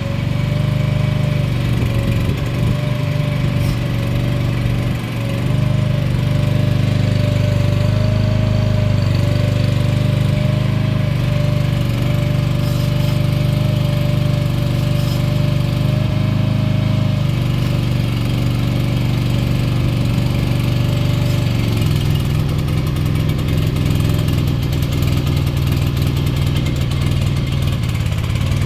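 Small engine of a TMG MVE09K mini excavator running steadily, with a thin whine over it that stops about two-thirds of the way through; shortly after, the engine note shifts.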